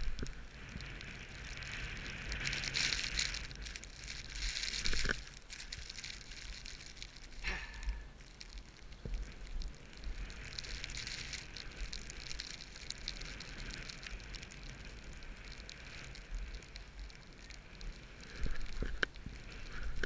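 Skis sliding over snow: a hissing, crackly swish that swells and fades in long strokes, with a few sharp clicks now and then.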